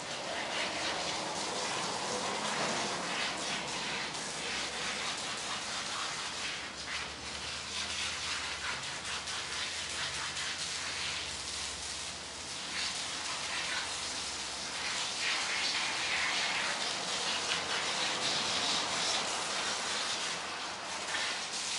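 Garden hose spraying water onto a dog's wet coat and the pavement: a steady splashing spray, louder for a few seconds about two-thirds of the way through.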